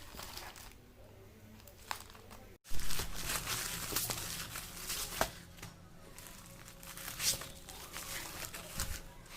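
Earphone packaging being handled and opened: crinkling, rustling and tearing with a few sharp clicks. It is soft at first and becomes louder after a sudden break about two and a half seconds in.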